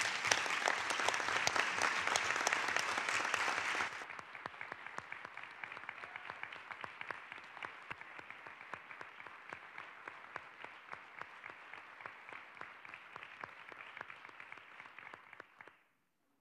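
Audience applauding after a speech: loud for about four seconds, then quieter steady clapping that stops shortly before the end.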